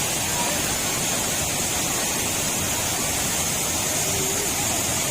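Waterfall's falling water making a steady, loud rushing hiss.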